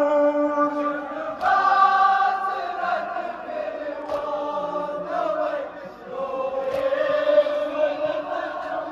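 Men's voices chanting a Kashmiri noha (Shia mourning lament) in unison with long held notes, with a sharp strike about every three seconds, typical of the chest-beating (matam) that keeps time to it.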